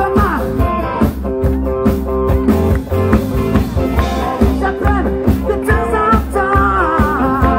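Live rock band playing loudly: electric guitars and drums with a steady beat under sung vocals.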